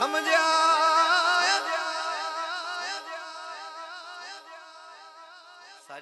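Unaccompanied male voice singing a naat, drawing out the end of a line in a long ornamented melisma with a fast-wavering pitch that gradually fades away.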